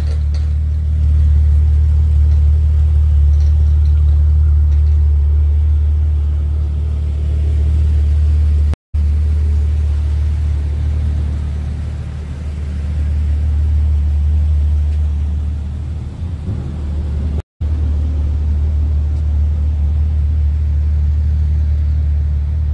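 Lifted Jeep Grand Cherokee's engine idling, a steady low rumble.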